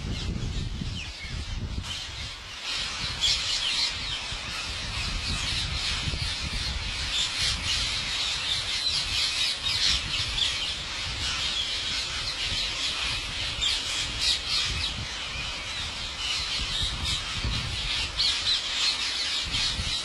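A large flock of rose-ringed parakeets screeching and chattering continuously, many harsh calls overlapping at once, over a low rumble.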